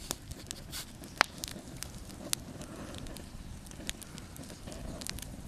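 Wood fire burning, crackling with frequent sharp pops over a low steady rush of flame. The loudest pops come about a second in and again just after two seconds.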